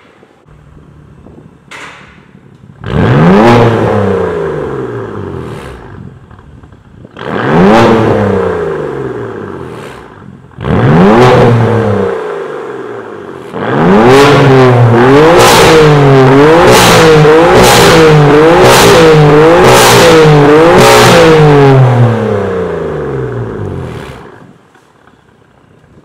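BMW F82 M4's twin-turbo straight-six, through an Fi valvetronic exhaust with catless downpipe and its valves open, idling and then revved. Three single blips each jump up and let the revs fall slowly back, with a few sharp pops between them. Then it holds high revs for about eight seconds with quick rises and dips in pitch, and drops back to idle near the end.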